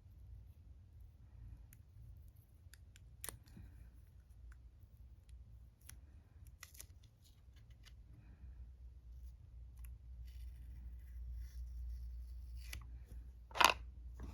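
Watercolour swatching sounds: light scratches and scattered small clicks of brush and paint pans being handled, over a low steady hum. Near the end comes one louder, ringing knock or clink.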